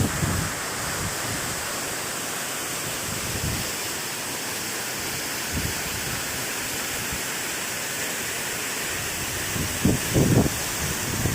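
Waterfall: a steady rush of falling water. A couple of low wind buffets hit the microphone near the end.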